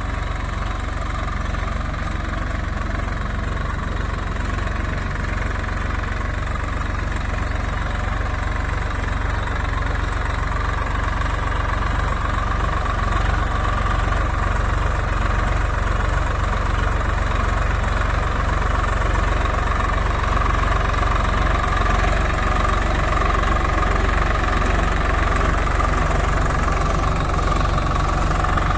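Swaraj 744 FE tractor's three-cylinder diesel engine running steadily under load while pulling a cultivator through the soil. It grows a little louder after about ten seconds.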